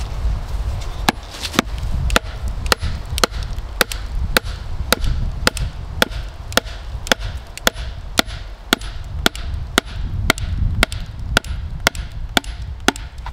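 A dry wooden dowel being hammered down into a hole through a wooden slab tabletop: sharp wood-on-wood knocks, evenly paced at about two a second, starting about a second in.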